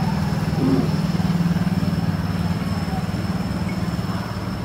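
A motor running steadily, a low, evenly pulsing drone with no change in speed, with a thin high steady whine above it.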